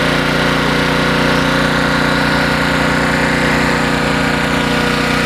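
Honda EG1400X portable generator's engine running steadily under a light load from a 100-watt light bulb.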